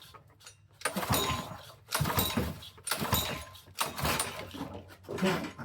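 Recoil pull-starter of a Honda GC190 engine yanked about five times, a second apart, each pull a rasping whirr of the cord as the engine turns over without firing. The engine won't catch: the owner suspects it needs a proper fuel supply and a carburettor clean.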